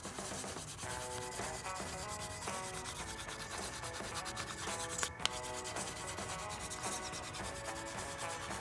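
Quick back-and-forth scribbling strokes rubbing on a paper cup as it is coloured in, with a small tap about five seconds in. Soft background music underneath.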